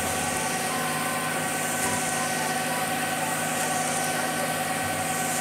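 Concrete mixer truck's diesel engine running steadily with its drum turning as it pours concrete down the chute: an even mechanical hum with a few held tones.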